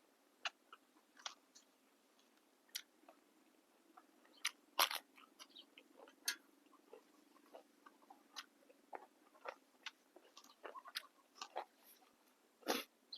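A person chewing crisp, fresh raw vegetables close to the microphone: irregular crunches and crackling bites, with louder ones near the middle and near the end.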